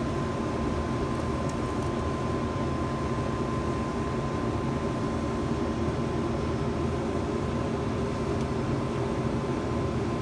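A steady machine-like hum with a thin constant whine above it, even throughout.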